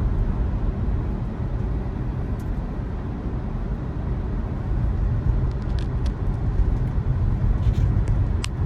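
Steady road and tyre rumble heard inside the cabin of a moving 2020 Tesla Model 3 Performance, an electric car with no engine note. A few light clicks sound about six seconds in and again near the end.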